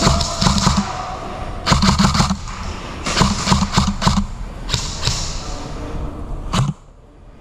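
Airsoft electric guns firing in short rapid bursts, four or so strings of quick clicking shots a second or so apart. The sound cuts off suddenly near the end.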